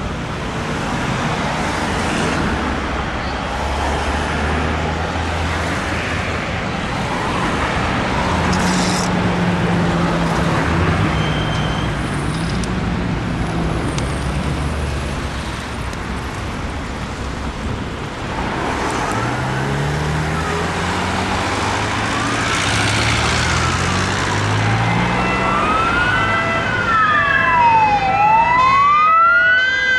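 Street traffic with vehicle engines running. From about twenty seconds in, an emergency vehicle's siren grows louder, a slow wail sweeping up and down in pitch, and is loudest near the end.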